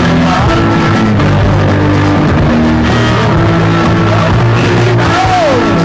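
Early-1980s rock band recording: guitar, bass, drums and keyboards playing with a lead vocal.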